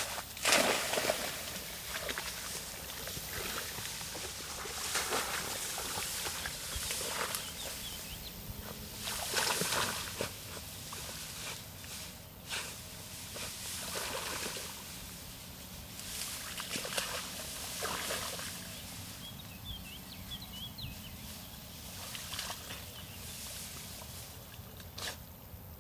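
A Barbet, a French water dog, wading through a pond, sloshing and splashing irregularly as she searches the water for a lost retrieving dummy.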